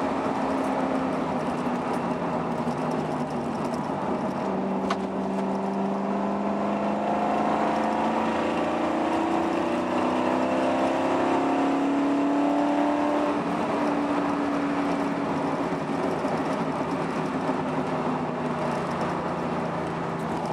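Car engine and tyre noise heard from inside the cabin while driving, the engine note slowly rising and falling with speed. A single sharp click about five seconds in.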